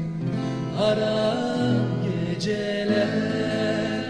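Background music: a song with long held, wavering vocal notes over a bass line that steps from note to note.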